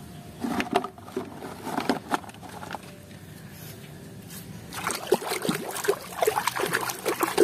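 Hard plastic toys clicking and knocking against each other as one is picked from a pile. After about five seconds, water splashing and sloshing as a mud-covered plastic toy is scrubbed by hand in a tub of water.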